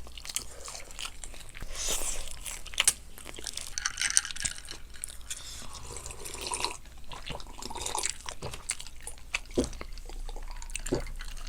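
Fried chicken being bitten and chewed close to the microphone: irregular crunches, wet chewing and small mouth clicks.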